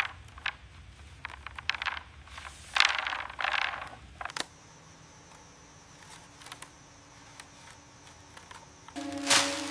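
Scraping and rustling handling noises mixed with sharp clicks over the first four seconds or so, then scattered faint clicks over a quiet background. Music begins near the end.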